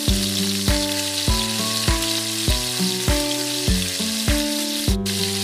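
Onions and ginger-garlic paste frying in oil in a stainless steel wok, sizzling steadily as a spatula stirs them. Background music with held chords and a steady beat, about one and a half beats a second, plays over it.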